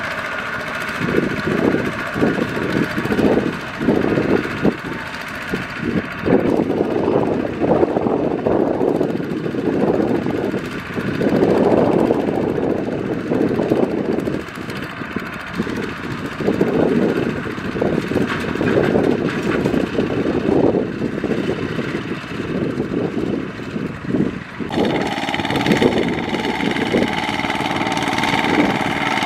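Single-cylinder diesel engine of a Kubota RT120 two-wheel walking tractor running under load while its mud-caked wheels churn in deep mud, the note surging unevenly. About 25 seconds in the sound changes abruptly to a steadier engine note.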